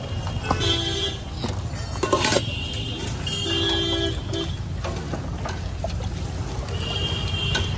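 Busy street traffic with a steady low rumble and vehicle horns honking several times. There are a few sharp metal clinks, as of a ladle against a steel pot.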